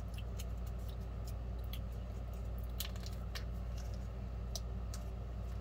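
Steady low hum with a few faint, scattered small clicks over it.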